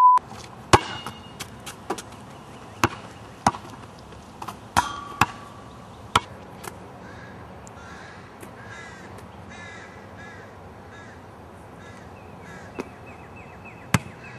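A test-tone beep cuts off at the start. Then a basketball bounces on an asphalt court in single, spaced-out sharp smacks over the first half. Birds call in short repeated chirps through the second half.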